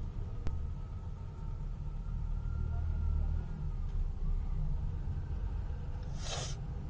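Low, steady engine rumble of a stopped vehicle idling, heard from inside its cabin. A single click comes about half a second in, and a short, sharp hiss about six seconds in.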